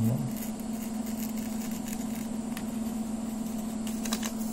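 Steady low hum from background equipment, with a few faint clicks about four seconds in.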